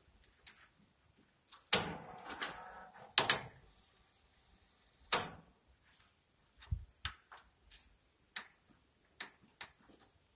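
Clicks and knocks from the plastic front-panel buttons and casing of an Aiwa TV/VCR combination set being pressed by hand. Three sharp, louder knocks come in the first half, followed by a string of lighter clicks.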